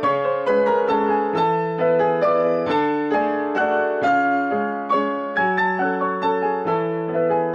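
Background piano music: a steady run of struck notes over chords, each note fading after it is played.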